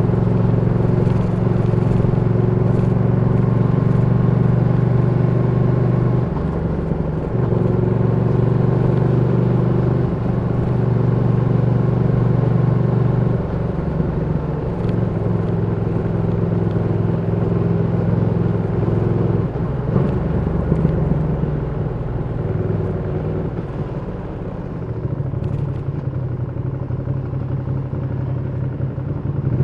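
Ducati Panigale V2's 955 cc L-twin engine running at low revs on the move. Its pitch steps down and back up several times as the rider shifts and changes throttle.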